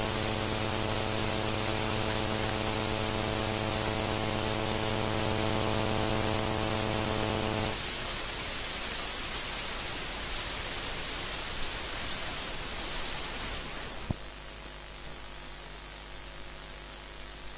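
Electrical hum with many evenly spaced overtones over a steady hiss from the recording's sound system. The hum stops about eight seconds in, leaving the hiss alone, with a faint click later on.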